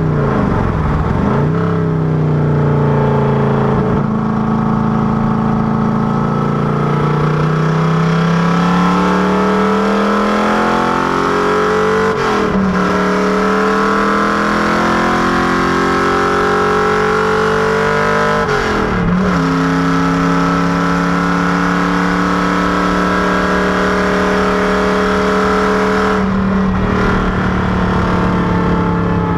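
Factory Five Racing Cobra Daytona Coupé's V8 engine running hard. Its pitch climbs slowly and drops sharply at each gear change: one about twelve seconds in, another about two-thirds through, and a brief break near the end.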